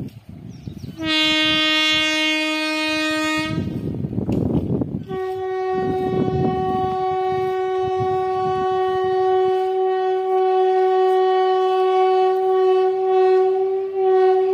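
Train horn blowing twice: a short, lower blast of about two and a half seconds, then after a brief gap a long, slightly higher blast held for about nine seconds. A low rushing rumble fills the gap between the two blasts.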